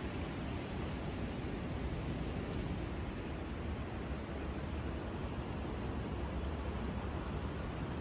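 Steady low outdoor rumble with no distinct events, and a few faint high ticks.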